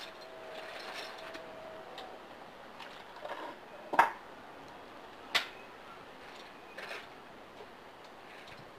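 Sharp metal clanks as a 3.4-litre V6 engine hanging from an engine hoist is guided down into a car's engine bay: two loud ones about a second and a half apart, with a few lighter knocks around them.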